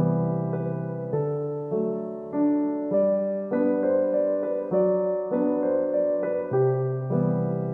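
Background music: a piano-like keyboard playing a slow, steady melody, with a new note or chord struck about every half second.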